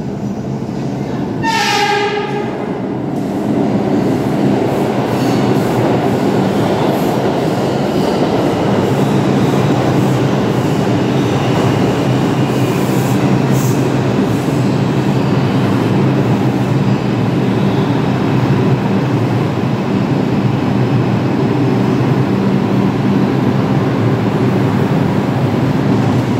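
New York City Subway R142 train arriving on the express track: a short horn blast about two seconds in, then the train's rolling noise and motor hum build up and hold steady as the cars run in along the platform.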